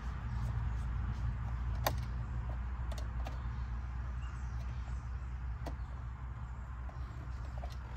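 A screwdriver turning a terminal screw on an electrical outlet, making a few sharp metallic clicks, over a steady low rumble.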